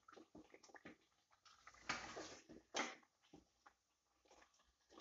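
Spatula stirring thick rice-flour dough in a steel pot: faint scrapes and small knocks against the pot, with a longer, louder scrape about two seconds in and a sharp knock just after it.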